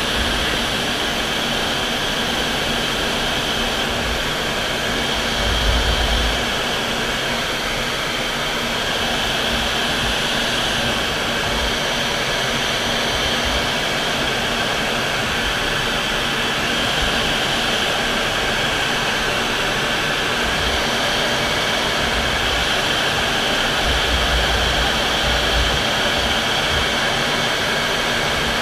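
MiG-29 jet fighter in flight: its twin Klimov RD-33 turbofans and the rushing air make a steady, even noise. Brief low rumbles come about six seconds in and again near the end.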